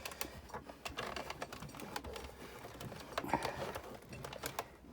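Faint, irregular light clicks and taps, the sound of die-cutting plates, a metal die and cardstock being handled on a desk.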